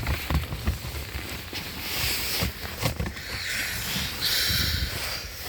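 Rustling and scraping with scattered light knocks from hands feeling around the plastic dashboard trim of a car, searching by touch for the diagnostic port.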